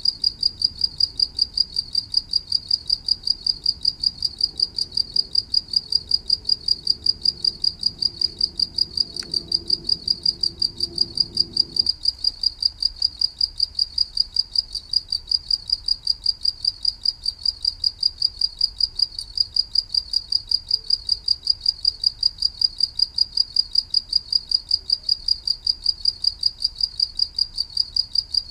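A cricket chirping steadily in an even rhythm, about three to four high-pitched chirps a second.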